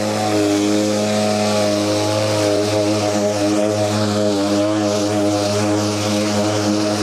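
Kärcher battery-powered commercial rotary mower running at full power on its lowest cutting height, a steady electric motor and blade hum as it cuts through long, thick grass.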